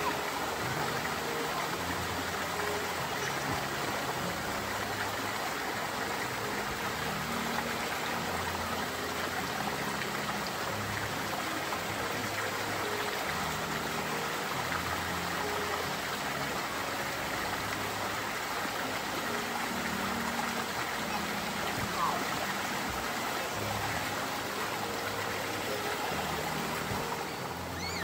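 Waterfall running over rock: a steady, unbroken rush of falling water. One brief knock about three-quarters of the way through.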